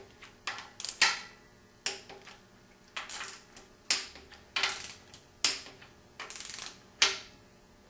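Torque wrench clicking on the head bolts of a Ford flathead V8's aluminum cylinder head as they are tightened one after another: sharp metallic clicks, about one a second, with a short run of quick ratchet ticks a little after six seconds in.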